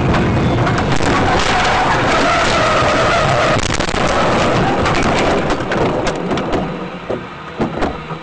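A car crashing, heard from inside it: tyres skidding and the body scraping and banging in a loud, dense clatter for about six seconds, dying down to a few separate knocks near the end.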